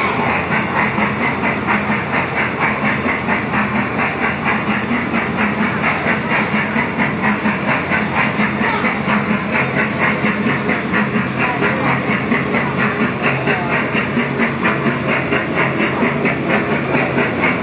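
Thomas the Tank Engine kiddie ride train running, with an even rhythmic chugging clatter of about three to four beats a second over a steady hum.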